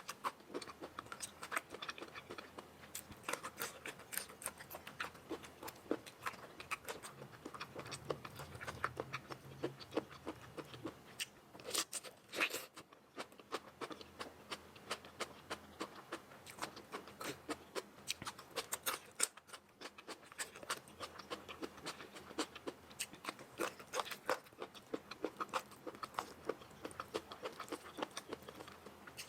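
Close mouth sounds of a person eating noodles: steady chewing made of many quick, irregular clicks and smacks, with a few louder bursts along the way.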